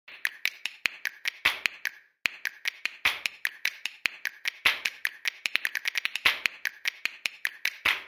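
A rapid run of sharp glass knocks, several a second, as whiskey bottles are set down one after another on a tabletop, with a short break about two seconds in.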